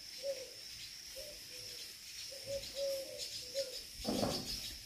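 A dove cooing repeatedly, a string of short low notes, over a steady high-pitched whine. A brief rustling noise comes about four seconds in.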